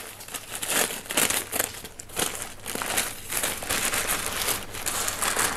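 Packing paper crinkling and rustling as hands unwrap it from a plant, a dense, uneven run of crackles.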